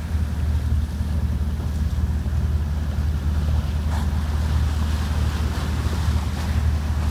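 Wind buffeting the microphone as a steady low rumble, over the rush of sea water churning along the side of a moving lifeboat.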